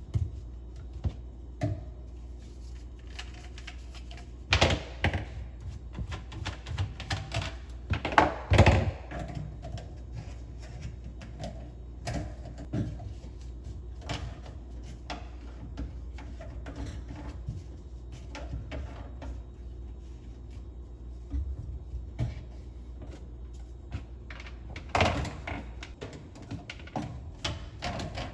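Irregular clicks, taps and knocks of plumbing work on a kitchen sink's drain fittings and tools inside the sink cabinet, with louder bursts of knocking about 5 and 8 seconds in and again near the end, over a steady low hum.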